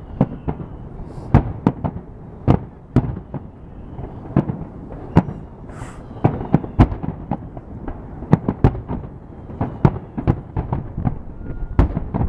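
Many fireworks bursting, one after another with no pause, in sharp irregular bangs over a continuous background of distant crackling and rumbling.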